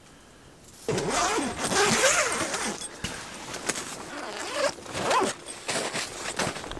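Zipper of a fabric Otter ice-fishing shelter being worked in several long pulls, starting about a second in.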